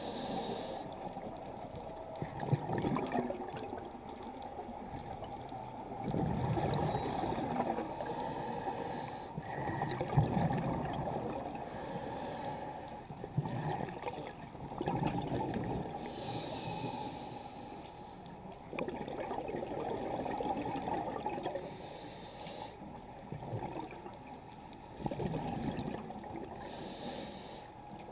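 Scuba diver breathing through a regulator underwater, heard through a camera housing: muffled bubbling bursts of exhaled air every few seconds, with short hisses between them.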